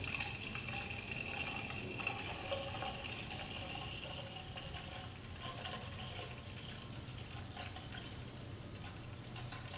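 Engine coolant poured gently in a steady stream from a plastic jug into a car's coolant expansion tank.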